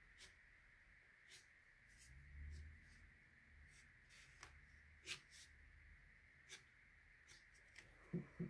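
Faint, scattered ticks and scratches of a white gel pen drawing on watercolour paper, with a soft low bump about two and a half seconds in, over a faint steady hiss.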